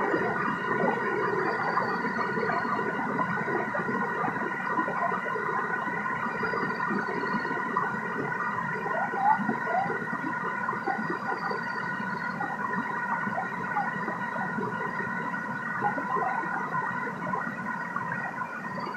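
Waterfall rushing and gurgling, with a bird's short falling whistle repeating about every four to five seconds and a steady high-pitched hum of several tones behind it.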